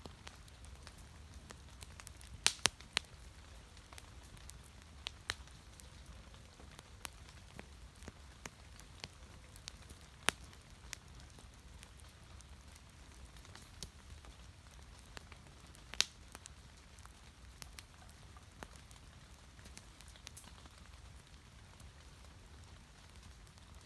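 Wood fire crackling, with irregular sharp pops and snaps over a faint low rumble; the loudest pops come a few seconds in and again about two-thirds of the way through.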